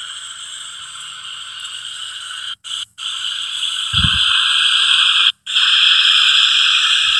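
Spirit box radio scanner sweeping through stations, its small speaker putting out continuous static hiss that cuts out briefly three times. The static gets louder about four seconds in, together with a low thump.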